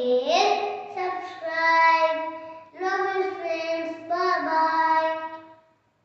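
A young boy singing a short tune in two phrases of held notes, with a brief break a little under three seconds in; his voice fades out just before the end.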